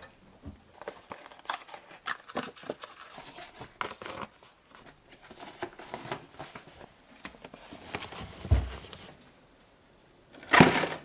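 Rustling and crinkling of packaging and fabric being handled, with many small clicks and a dull thump about eight and a half seconds in, then a louder rustle near the end.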